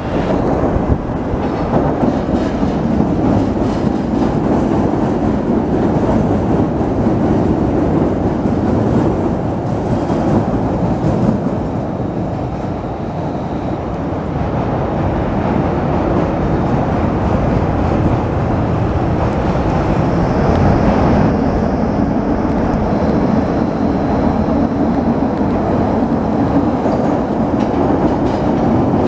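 Chicago 'L' rapid-transit train running along the elevated steel Loop structure, a continuous loud rumble of its wheels on the rails.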